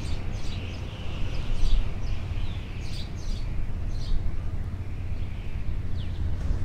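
Outdoor nature ambience: birds chirping in many short, high, downward-sweeping calls, some in quick runs, over a steady low rumble.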